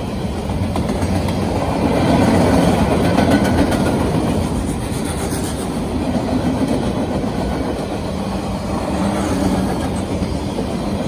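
Empty flatcars and bulkhead flatcars of a freight train rolling past, their steel wheels running on the rails with a steady, loud noise.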